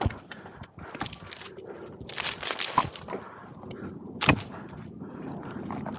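Irregular knocks, clicks and scraping, with a sharp knock near the end of the third second and a louder one a little over four seconds in.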